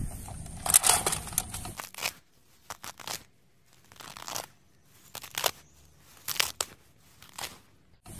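A rabbit biting and chewing leafy greens, heard as short crunching, tearing bites at irregular intervals over a near-silent background. For about the first two seconds there is rustling handling noise instead.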